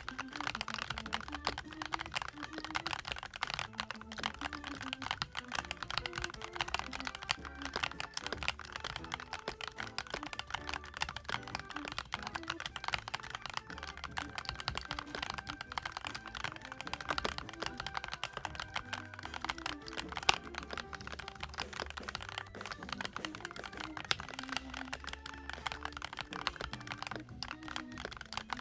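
Continuous fast typing on a CIDOO ABM098 mechanical keyboard, a gasket-mounted board with CIDOO Blue-Through switches and doubleshot ABS/PBT keycaps: a dense, even run of keystrokes with a short break near the end.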